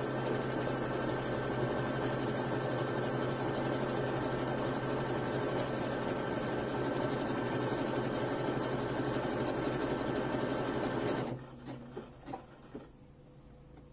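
Computerized sewing machine running steadily as it stitches a buttonhole, stopping suddenly about eleven seconds in, followed by a few light clicks.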